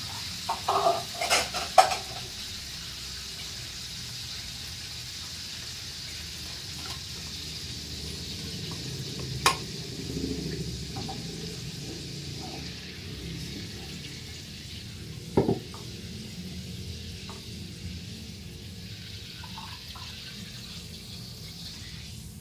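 Hot cooking oil sizzling steadily in a wok, with a few sharp knocks of metal on the wok, the loudest about two seconds in and single ones near the middle and about two-thirds through.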